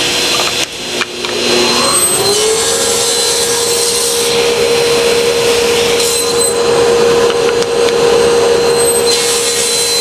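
Table saw running while tapered dovetail splines are cut from a hardwood blank in a sled. Its hum rises about two seconds in, then holds steady under the noise of the blade cutting through the wood.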